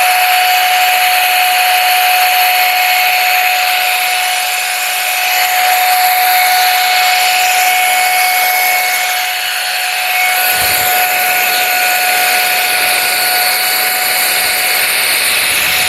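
Pro Hot hot air brush with its round brush attachment, running steadily: a loud, even rush of blown air over a constant motor whine.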